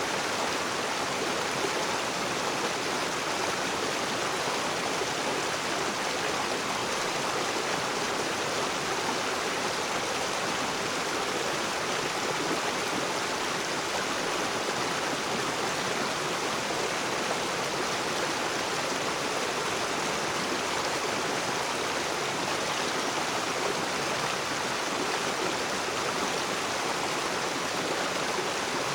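Rocky river flowing over stones, a steady rushing and gurgling of water.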